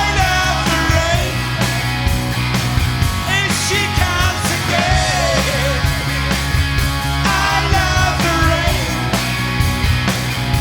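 Rock music: a sung lead vocal over a full band with a steady drum beat.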